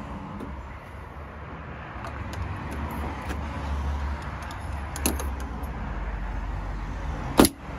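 Slide-hammer dent puller on a glue tab stuck to a car door panel: a few light clicks as it is handled, a smaller knock about five seconds in, then one sharp, loud clack near the end as the hammer strikes and pops the glue tab off the panel.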